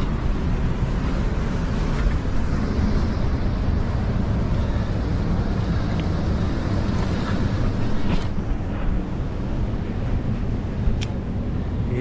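Steady rush of surf washing over a sandstone rock ledge, mixed with wind noise on the microphone.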